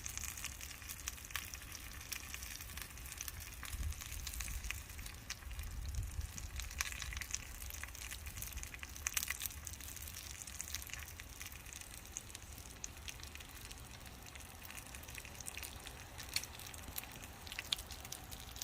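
Bacon and eggs frying, a steady sizzle with frequent crackling pops throughout. A low hum runs underneath.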